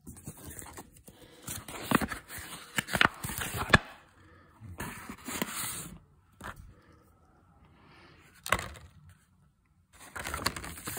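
Hands rummaging through a box, crinkling plastic baggies and paper in irregular bursts with scrapes and small clicks, with quieter gaps between.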